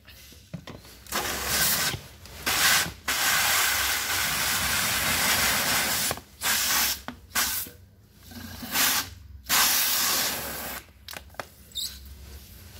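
High-pressure spray gun jetting water into a plastic bottle: a hiss in repeated bursts, the longest lasting about three seconds, then several short squirts.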